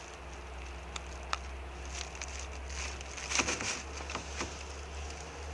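Quiet open-water ambience from a small boat on a lake: a steady low rumble with a scatter of light ticks and patters, busiest about three and a half seconds in.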